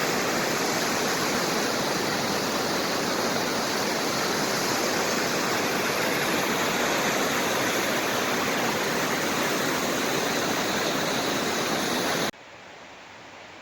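Rushing water of a mountain stream, a steady loud rush that cuts off abruptly near the end, leaving a much fainter hiss.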